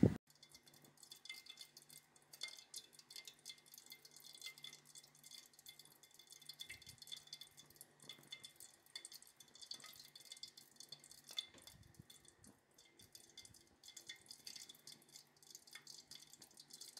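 Faint scattered clicks and drips over a low steady hum, as quail eggs are dipped in thick batter on bamboo skewers and lifted out with batter dripping back into the bowl.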